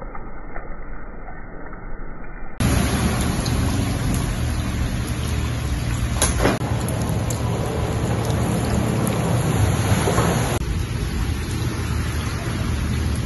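Heavy rain falling on a flooded street: a steady hiss of drops hitting standing water. It sounds muffled for the first couple of seconds, then turns fuller and louder.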